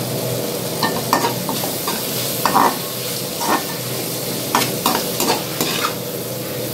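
A perforated steel spatula scrapes and stirs onions, tomatoes and curry leaves in a steel kadai, in about ten short, irregular scrapes and clinks against the pan. A steady sizzle of frying runs underneath.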